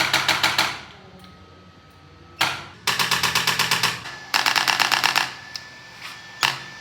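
Mechanical chiropractic adjusting instrument firing rapid trains of sharp clicking thrusts, about eight to ten a second. They come in bursts of about a second with short pauses between, and a single click twice.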